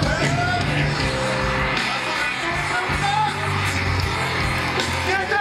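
Rock band playing live through a concert sound system, with guitar over a steady held bass line.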